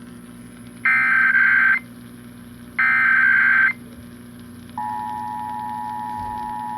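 Emergency Alert System test header heard from a radio speaker: two bursts of the digital SAME data tones, each about a second long with a second's gap between them. About five seconds in, the steady two-tone EAS attention signal starts and holds.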